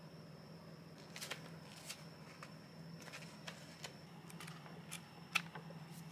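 Paper pages of a book being opened and leafed through by hand: a scattering of short crisp rustles and ticks, the sharpest near the end, over a steady low hum.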